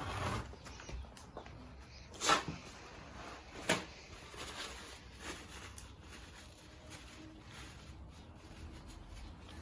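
Faint handling noises from work under a motorcycle during an oil drain: a few short clicks or knocks, the two loudest about two and four seconds in, over a quiet background.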